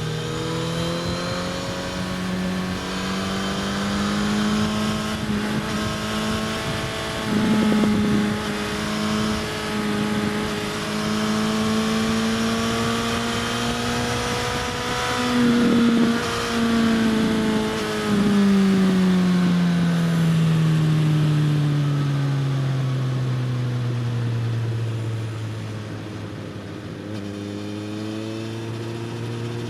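Suzuki GSX-S1000's inline-four engine with a slip-on exhaust, heard from on the bike over wind noise. The engine note holds and climbs slowly under throttle for most of the time, falls steadily about two thirds of the way through as the bike slows, then starts rising again near the end.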